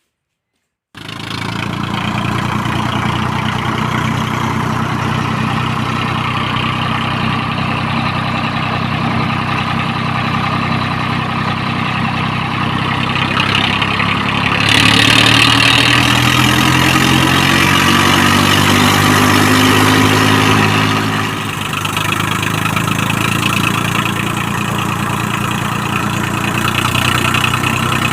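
Swaraj 855 tractor's diesel engine running through a newly fitted silencer: steady idle, revved up for about six seconds midway, then settling back to idle.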